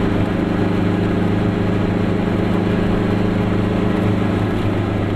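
Glas Goggomobil's air-cooled two-stroke twin engine running at a steady speed on the move, heard inside the small car's cabin, with road noise underneath.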